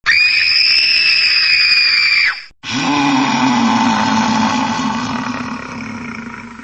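Horror sound effects: a high-pitched, held scream-like cry that starts suddenly and cuts off after about two and a half seconds, followed by a low groaning roar that slowly fades away.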